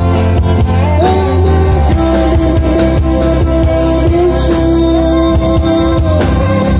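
Live band playing loud rock music on electric guitar, acoustic guitar and drum kit, with one long held note through the middle.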